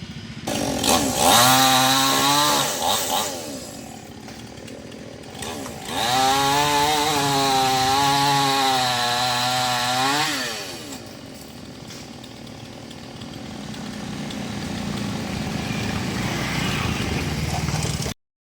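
Maestro two-stroke chainsaw cutting branches: it revs to full throttle twice, the pitch sagging under load as the chain bites, and drops back to a lower run between and after the cuts.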